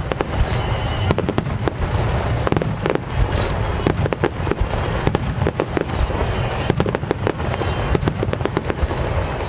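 Starmine, a rapid-fire barrage of aerial firework shells, bursting continuously: many sharp bangs overlapping in quick, irregular succession over a deep booming rumble.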